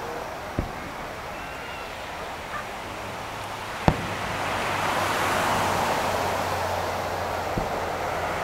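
Fireworks shells bursting: three separate booms about three seconds apart, the middle one the loudest, over a steady rush of background noise that swells after the middle boom.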